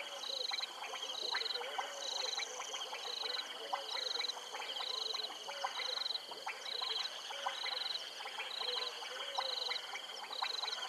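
Frogs calling in a chorus from the wetland: a high pulsed chirp repeating about once a second, with scattered short clicking calls and small low croaks.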